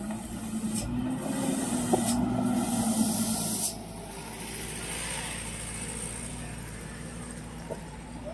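Mitsubishi light truck's diesel engine running close by, with a loud hiss over it that cuts off suddenly about three and a half seconds in. A softer rushing noise follows.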